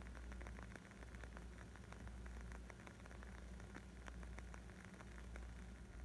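Wood fire crackling: a dense, irregular stream of small pops and snaps over a low, steady rumble of the flames.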